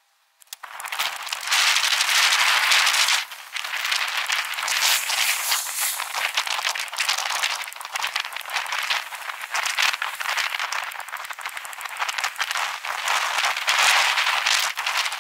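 Bicycle rattling as it rolls over the street, picked up through a camera mounted on the handlebars: a dense, hissy clatter of rapid small knocks, starting about half a second in and briefly dropping away around three seconds in.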